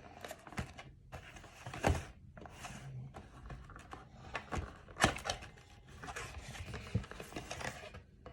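A trading-card box and its packs being handled: rustling with irregular light knocks and taps, the sharpest about two seconds in and about five seconds in.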